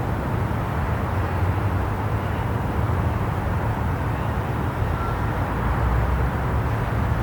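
City background noise: a steady low rumble of distant traffic with a hiss of general street noise.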